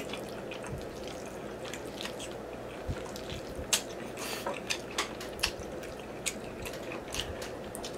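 Close mouth sounds of a man eating spaghetti in meat sauce: wet slurping of noodle strands and chewing, with irregular small smacking clicks.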